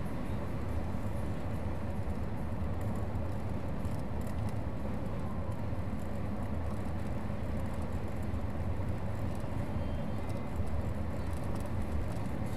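Car driving along a road: a steady low rumble of engine and tyre noise that holds even throughout.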